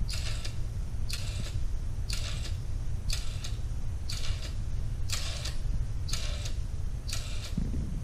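Meccano-built electromechanical nixie clock mechanism stepping once a second, a short rasping click at each step, over a steady low hum.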